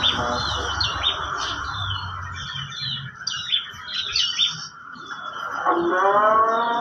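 Many small caged birds chirping and twittering in quick, overlapping calls. Near the end a steady pitched musical tone starts with a short upward glide.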